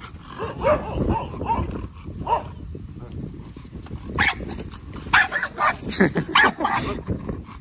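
Dog barking in short bursts, with a quick run of about six or seven barks between roughly five and seven seconds in.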